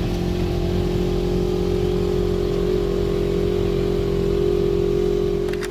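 A side-by-side utility vehicle's engine running at a steady speed while driving over snow, heard from inside the cab as an even drone.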